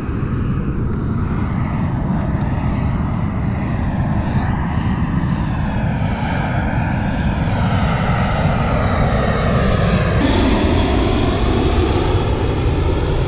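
A steady engine drone with slowly sweeping tones that shift about ten seconds in.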